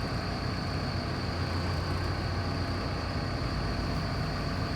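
An engine running steadily at idle, with a deep even hum and a constant thin high whine over it.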